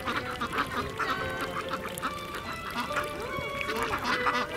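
Mallards quacking, many short calls overlapping throughout.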